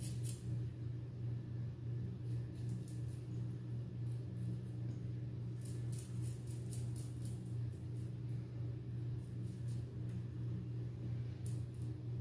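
RazoRock Hawk V2 single-edge razor with a Feather Professional blade scraping stubble in short runs of quick strokes, a few seconds apart, as a missed spot is touched up. A steady low hum runs underneath.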